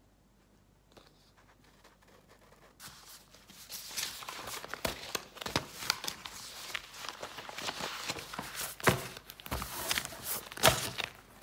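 Near silence for about the first three seconds, then continuous rustling and handling noise with many scattered clicks and knocks, the sharpest ones near the end.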